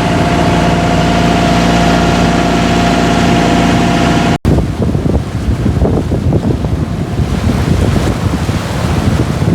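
A boat's engine running steadily at cruising speed, a steady drone. After a sudden cut about four and a half seconds in, wind buffets the microphone over the rush of water past the moving hull.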